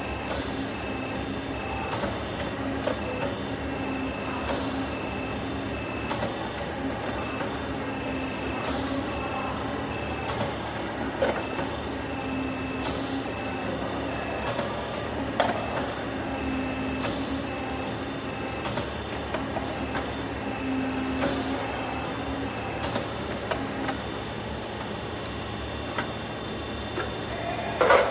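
Downspout elbow machine running through repeated working cycles: a steady machine drone with a tone that switches on and off, and short hisses about every two seconds. A sharp clatter comes near the end.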